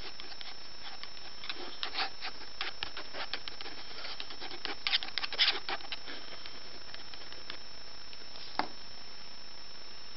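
Pen scratching quick strokes across sketchbook paper, in a dense run through the middle, with one sharper tick near the end, over a steady hiss.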